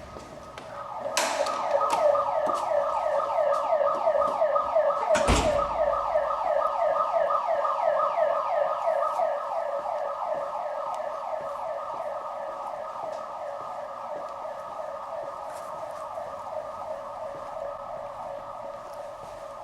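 Building alarm going off suddenly about a second in: a rapid siren-like warble of falling sweeps, several a second, loud at first and growing fainter in the second half. A sharp knock comes as it starts, and a heavy thump about five seconds in.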